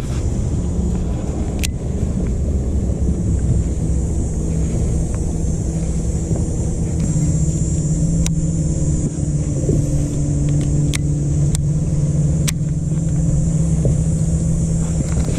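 Electric trolling motor of an Old Town AutoPilot 120 kayak humming steadily as it holds the boat in place on GPS spot lock, its hum growing stronger about halfway through. A few sharp clicks stand out over the hum.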